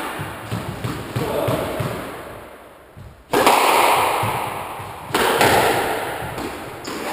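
A squash ball cracking off rackets and walls roughly every two seconds. Each hit is sharp and sudden and rings on in the court's long echo before fading.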